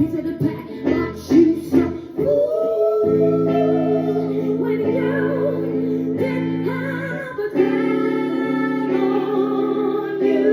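Live band music played through the PA: choppy guitar chords, then, from about two seconds in, a long sung note with vibrato held over sustained chords.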